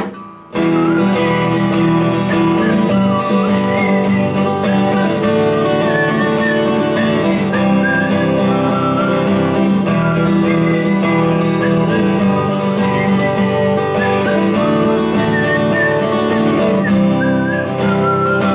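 Steel-string acoustic guitar strummed steadily in an instrumental break of a folk-rock song, kicking in about half a second in after a brief lull. A thin, wavering high melody line runs over the chords.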